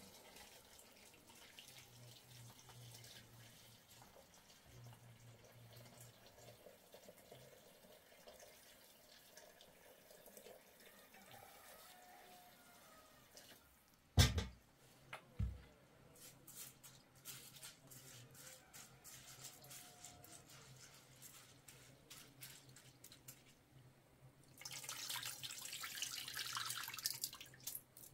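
Water dripping and trickling, with a sharp knock about halfway through, the loudest sound here, followed a second later by a second thump. Near the end comes a few seconds of running water.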